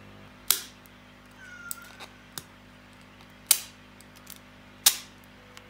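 Small side cutters snipping the thin printed brim off a 3D-printed nylon gear: three sharp plastic snaps, the first about half a second in and the others about three and a half and five seconds in. A faint short squeak comes between the first two snaps.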